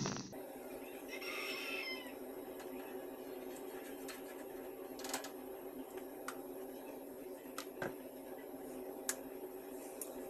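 A rooster crowing faintly, a single call about a second in, over a steady low hum. A few light clicks and taps follow later.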